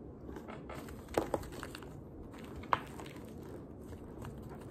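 Chunks of a baked cornstarch brick squeaking and crunching, with a few sharp squeaks: two close together about a second in and one near three seconds. The starch is squeaky rather than crunchy.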